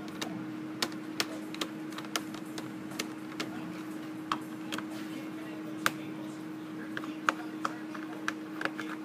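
Irregular sharp clicks and taps, about one or two a second with a few louder ones, over a steady low hum.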